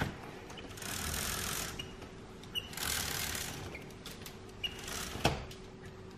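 Fabric roller blind being raised by pulling its bead chain: three rattling pulls about two seconds apart, with a sharp knock about five seconds in. A faint steady hum runs underneath.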